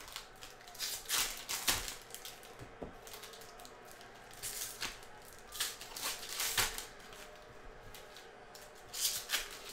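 A foil pack of Panini Mosaic soccer cards crinkling, and the cards being flipped through and stacked on a table, in several short bursts of rustling and clicking.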